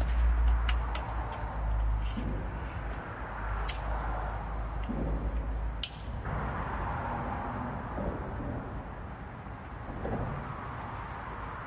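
Wind buffeting the microphone with a low rumble, with several sharp clicks from a metal telescoping umbrella pole being handled. About six seconds in, the rumble stops abruptly and a steadier hiss of wind carries on.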